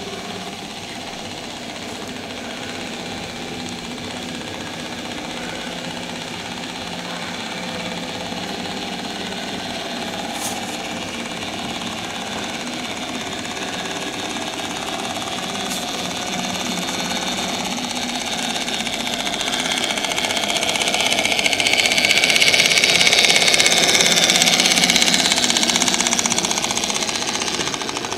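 Garden-scale model train running on its track: a steady rattle of the small locomotive's drive and the wagons' wheels. It grows louder as the train passes close by, about two-thirds of the way through, then eases off slightly.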